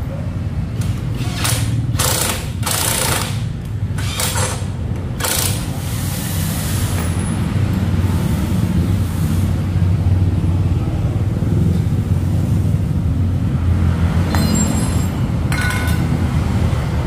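A power wrench working the exhaust bolts on a Honda Vario 160 scooter, going in about five short bursts in the first six seconds, over a steady low rumble of passing street traffic.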